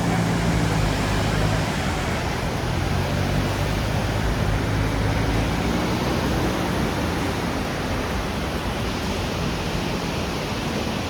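Steady loud rushing noise with a low hum underneath that fades after about two seconds.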